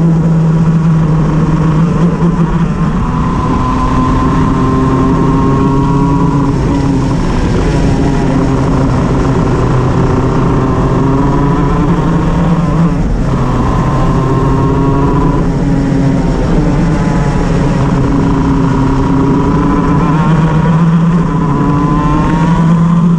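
Shifter kart's two-stroke engine running hard on track. Its pitch climbs in long pulls and falls back several times, sharply about six and a half and thirteen seconds in. The kart has a misfire.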